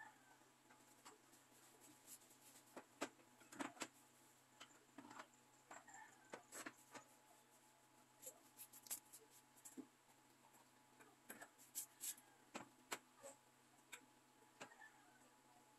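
Faint, irregular clicks and knocks of metal cans being handled and set down on a store shelf.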